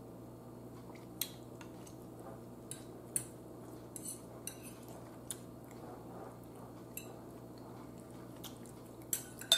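A metal fork clinking and scraping against a bowl while picking through pork neck bones: about ten light, scattered clinks over a low steady hum, the sharpest near the end.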